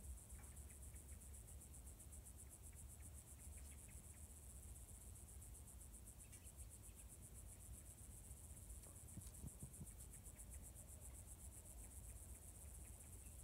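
Faint, high-pitched chirring of crickets, a steady fast pulsing trill that runs on unbroken.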